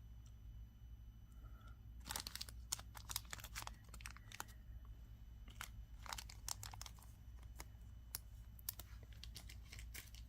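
Small packets of beads crinkling as they are handled, in two spells of quick crackles, one about two seconds in and another from about six seconds in.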